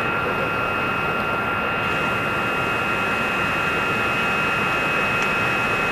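Steady machine drone, an even rushing noise with a steady high whine running through it, unchanging throughout.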